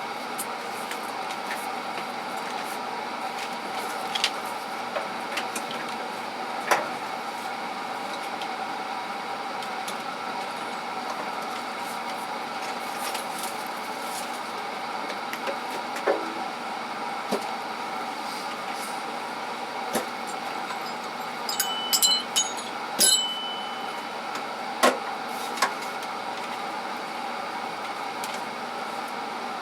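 Tools and small parts being handled and put away in toolbox drawers: scattered clicks and knocks, with two ringing metal clinks about three quarters of the way through, over a steady machine hum.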